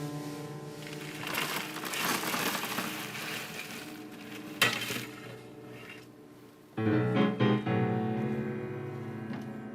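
Instrumental background music with sustained tones that swell up, then a sudden loud chord struck a few times in quick succession about seven seconds in, ringing on afterwards.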